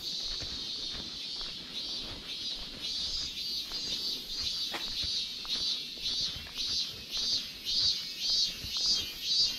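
Cicadas calling: a steady high buzz with a pulsing call on top, about two to three pulses a second, growing louder toward the end.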